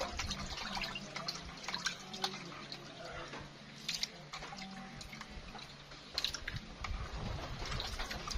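Hands washing cut catfish pieces in a plastic basin of water: irregular splashing and dripping as the pieces are rubbed in the water and lifted out.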